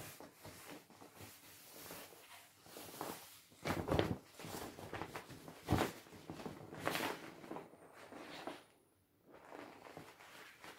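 Inflated vinyl paddling pool being handled and moved about: irregular plastic rubbing, with dull knocks about four and six seconds in.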